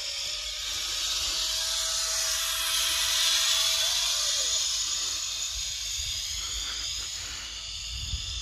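Zip-line trolley running along the steel cable as a rider passes: a hissing whir that swells to its loudest about three seconds in and then fades, with a faint steady whine beneath it. Wind rumbles on the microphone in the last few seconds.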